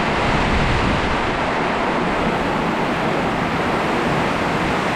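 Storm of strong wind and heavy sideways rain making a steady, dense rush, with low rumbling buffets of wind on the microphone.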